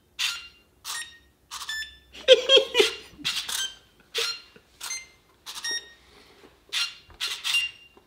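EXMARS 2.0 electronic puzzle cube playing a birthday tune as a string of short electronic beeps at a melodic, uneven rhythm, one note at a time.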